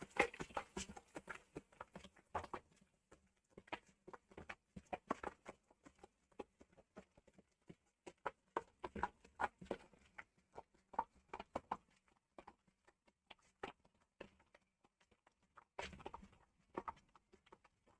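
Lentil batter for khaman (ground chana dal, urad dal and poha) being beaten by hand in a bowl: faint, irregular wet slaps and taps. The beating aerates the batter so the khaman will turn out soft.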